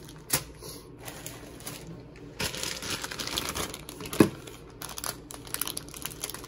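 Plastic bag packaging crinkling and rustling as it is handled, with scattered clicks and one sharp click about four seconds in.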